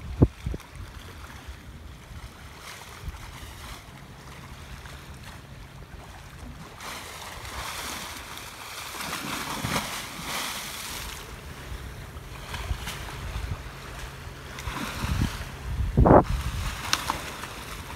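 Sea water rushing and splashing around a moving ship's bow, with wind buffeting the microphone. Heavy low thumps come just after the start and about 16 seconds in, the later one the loudest. A faint low steady hum runs underneath for much of it.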